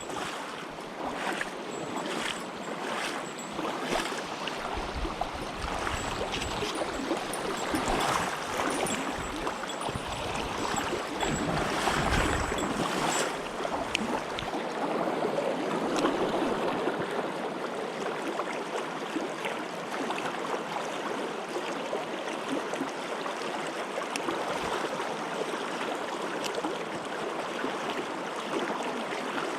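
Mountain stream rushing steadily over rocks, with scattered clicks and knocks during the first half.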